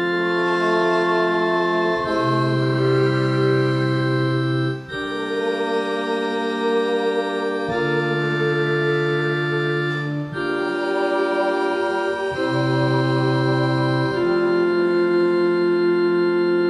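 Organ playing slow, held chords that change about every two to three seconds, some with a deep bass note.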